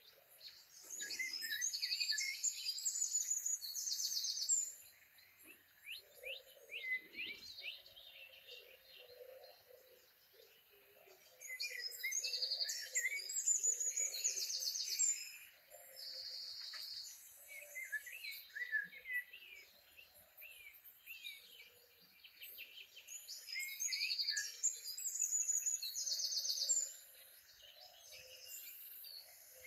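Background nature recording of songbirds: a bird sings bright, high phrases of three or four seconds, coming back about every ten seconds, with fainter, lower chirps and calls between.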